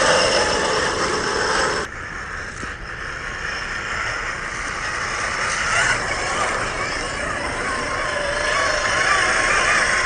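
Hobbywing AXE550 brushless motor and geartrain of a 1/10-scale Axial SCX10 III RC crawler whining as it drives over rough ground, the pitch wavering with throttle. The level drops suddenly about two seconds in, then builds back up.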